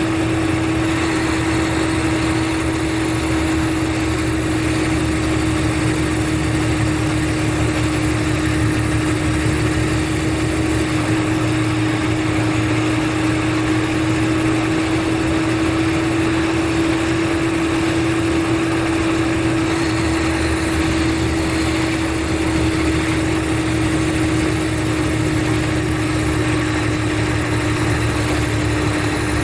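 Mercedes-Benz O500RSD coach's rear-mounted diesel engine running steadily, with a constant hum over a low rumble and no change in speed.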